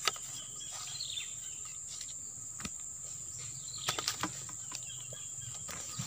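Steady high-pitched drone of swamp insects such as crickets, with scattered sharp clicks and taps and a few short chirps over it.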